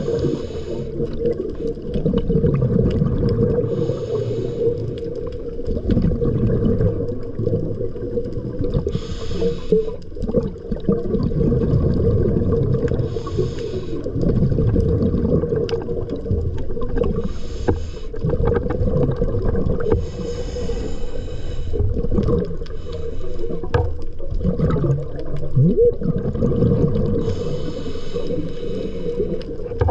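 Underwater sound at a dive: a steady low rumble with a burst of bubbling hiss every four seconds or so, the rhythm of a diver's exhaled breath bubbling away.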